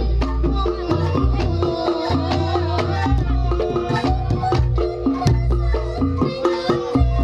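Reog Ponorogo gamelan music: a dense run of sharp drum strikes over deep gong tones that come back every second or two, with a wavering melody line above.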